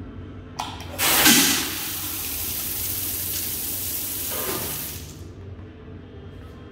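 Roasted coffee beans pouring out of an automatic weighing scale's funnel outlet into a metal bucket. A click comes about half a second in, then a rushing, rattling flow that is loudest as it starts, runs steadily for about four seconds and then stops.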